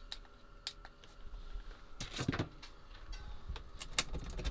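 Scattered clicks and knocks of things being handled, a cluster about two seconds in and a few more near the end, over a faint steady electrical hum.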